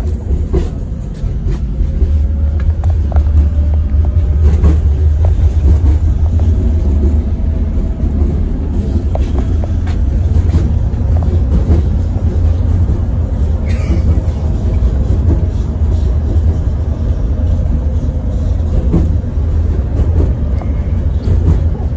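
71-402 tram running along the line, heard inside the passenger car: a loud, steady low rumble of wheels on rails and the running gear.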